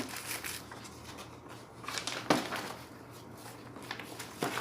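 Paper posters being handled and rustled, with a few light clicks and a sharp tap about two seconds in.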